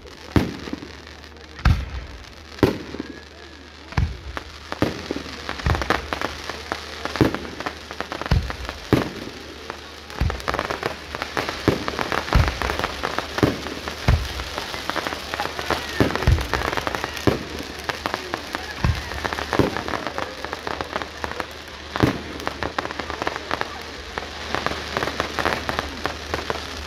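Fireworks display: sharp bangs of bursting shells about once a second over continuous crackling, the crackle growing denser about a third of the way through.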